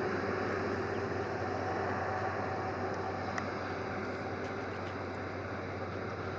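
Airbus A330-343's Rolls-Royce Trent 700 turbofan engines running steadily at low power, a continuous rushing hum with a faint held tone, easing slightly about two thirds of the way through.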